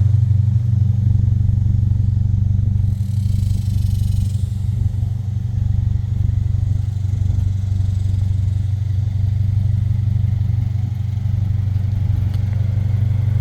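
2023 Subaru BRZ's 2.4-litre flat-four engine idling steadily through an aftermarket exhaust, a constant low drone.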